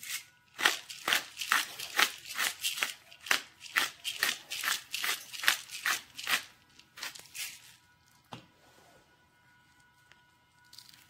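A spice shaker shaken over a raw steak, sprinkling seasoning in a quick, even rattle of about four shakes a second that stops about seven and a half seconds in. A single click follows about a second later.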